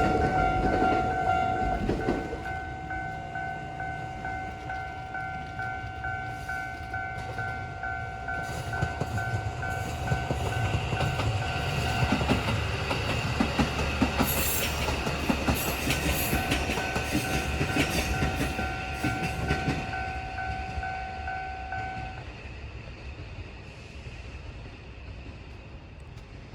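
Japanese railway level-crossing warning bell ringing in a steady repeating electronic tone while a train passes over the crossing with rumbling and clacking wheels. The bell stops about 22 seconds in and the train noise fades away.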